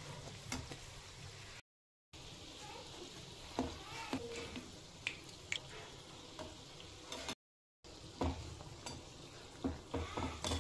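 Urad dal vadas deep-frying in a kadhai of hot oil: a steady quiet sizzle dotted with small sharp pops, with the occasional click of a metal slotted spoon turning them in the pan. The sound drops out briefly twice.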